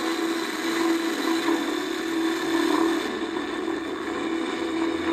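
Film soundtrack played through a TV speaker: the steady drone of a twin-engine seaplane's propeller engines under action-scene noise, with the hiss thinning about three seconds in.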